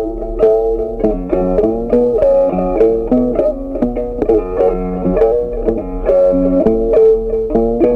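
Background music: a plucked-string melody with notes picked in a quick, steady run.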